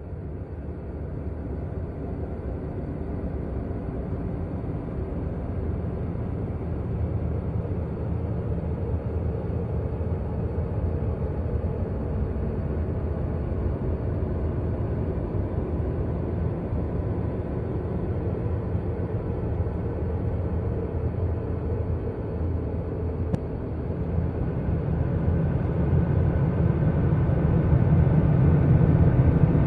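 Low, rumbling drone of a space sound recording or sonification of space-agency data, a continuous noise-like hum that swells louder near the end.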